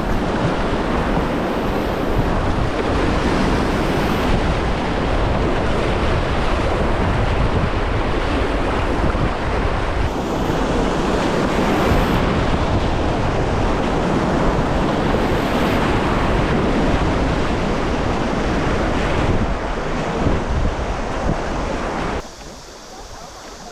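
Loud, steady rush of river water on a kayak run, mixed with wind buffeting the microphone; it drops off sharply near the end.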